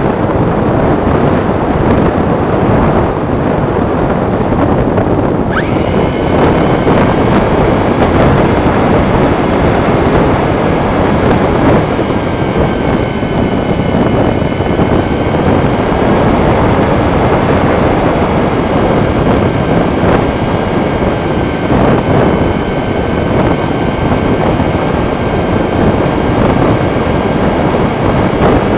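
Wind rushing over the microphone of a camera riding on a HobbyKing Fox foam motor-glider. About five seconds in, the model's electric motor and propeller start and run with a steady high whine over the wind.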